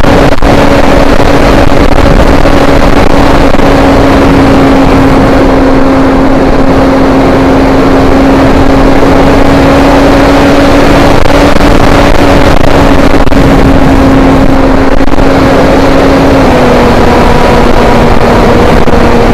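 Onboard sound of an RC foam model plane's motor and propeller: a loud, steady drone with a rushing noise of air over the microphone. The drone's pitch steps slightly lower about sixteen seconds in.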